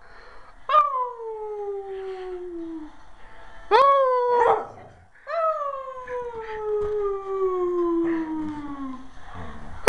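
Pet dog howling: three long howls, each starting high and sliding down in pitch, the second shorter, the third drawn out for about four seconds, and a fourth beginning at the very end.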